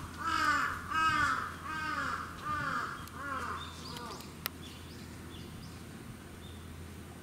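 A crow cawing: a run of about six evenly spaced caws that fade out about four seconds in. A single sharp click follows, then faint high chirps over a low steady hum.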